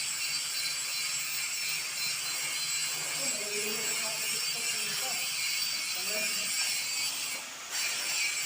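A steady high-pitched hiss with thin steady high tones in it, cutting out briefly near the end, with faint distant voices underneath.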